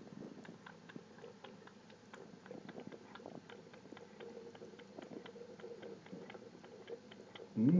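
Cat lapping water from a running tap: a rapid, regular run of small wet clicks over the faint hiss of the stream. A louder voice cuts in right at the end.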